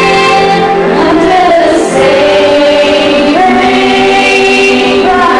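A group of young voices, led by female singers, sings held notes together through stage microphones. The harmony moves to a new chord about three and a half seconds in.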